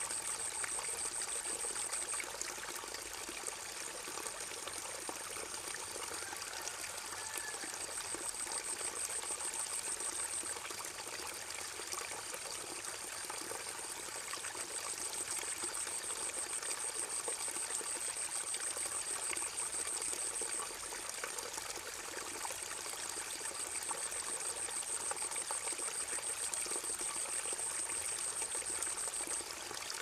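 Wetland ambience: a steady hiss of trickling water, with a high, rapidly pulsing trill that comes and goes in phrases lasting several seconds.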